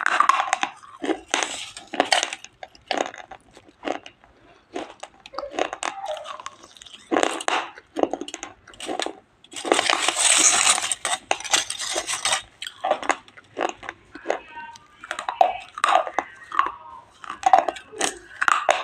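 Close-miked dry, crunchy food being bitten and chewed: sharp, irregular crunches, with a longer, denser stretch of crunching about ten seconds in.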